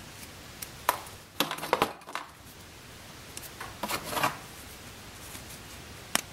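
Scissors snipping through thick leather in a few short cuts about a second in, followed by more short clicks and rustles as the leather pieces are handled.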